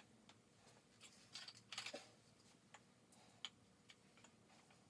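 Faint, scattered clicks and light taps of small plastic bowling-pin targets being stood back upright on metal shelving, a short cluster a little over a second in and a sharper single click later.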